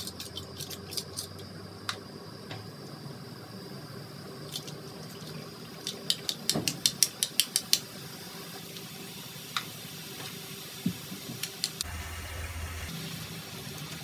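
Hot oil sizzling as drops of gram-flour batter fall through a slotted metal ladle and fry into boondi, with a quick run of light metallic taps on the ladle about halfway through. A low hum comes in near the end.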